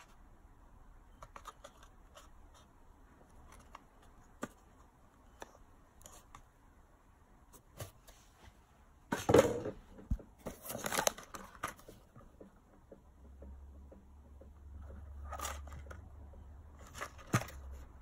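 Candy packets and small cardboard boxes being handled inside a cardboard shipping box: scattered light taps and clicks, with louder rustling and scraping of packaging about halfway through and again near the end.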